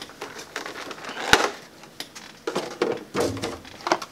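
Hands handling a boxed collectible vinyl figure and its packaging: scattered rustling and light knocks, with one sharp knock about a second and a half in.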